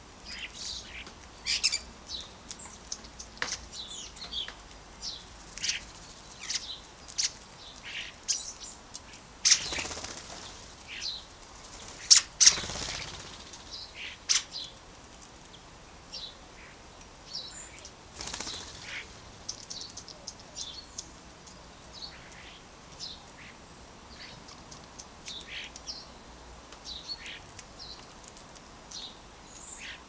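Starlings at a hanging bird feeder: short high chirps throughout, with a few louder bursts of wing flapping as birds fly on and off, the loudest about twelve seconds in.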